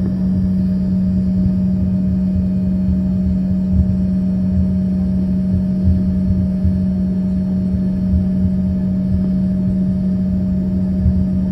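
Cabin noise of an Embraer ERJ-135 taxiing: the steady hum of its rear-mounted Rolls-Royce AE 3007 turbofans at taxi power, over an uneven low rumble as the airliner rolls along the taxiway.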